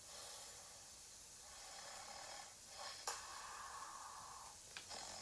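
A person imitating a sleeping bear's snore: two long, breathy snores, the second beginning with a click about three seconds in.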